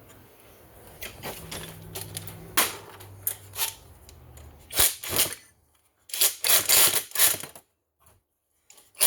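Sharp metal clicks and clatter of hand tools at work on the clutch of a vintage Stihl 020AV chainsaw, in dense quick runs around the middle and again a little later.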